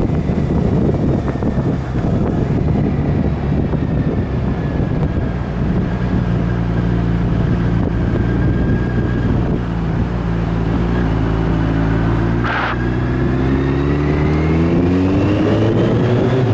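Motorcycle on the move with wind rushing over the microphone; the engine holds a steady note, then after a brief hiss rises in pitch as the bike accelerates near the end.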